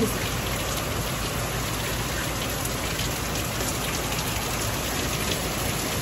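Heavy rain pouring down steadily, an even hiss of rain on surfaces.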